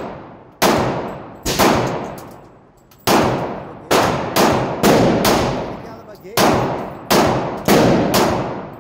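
Handgun fired about ten times at an irregular pace, roughly half a second to a second and a half between shots. Each shot carries a long echoing tail in the indoor range's lane.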